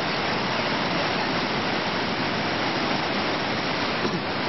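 Steady, even rush of flowing water, with no breaks or changes.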